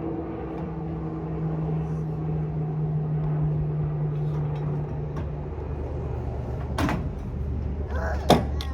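A steady low motor hum that drops in pitch about five and a half seconds in, with two sharp knocks in the last two seconds.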